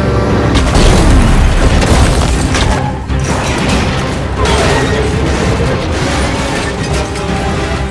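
Action film soundtrack: loud dramatic music mixed with heavy booming impact and crash effects.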